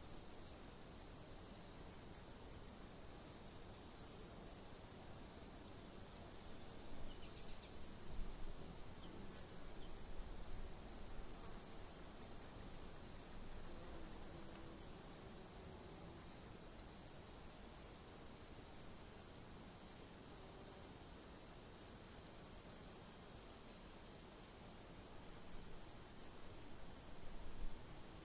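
Night insects: a cricket chirping in an even rhythm of about three chirps a second, over a continuous high-pitched insect trill.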